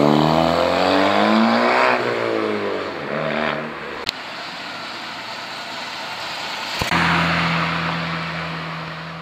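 Car engine accelerating away, its pitch rising for about two seconds and then falling. After two sharp clicks, another engine drones at a steady pitch until the sound cuts off.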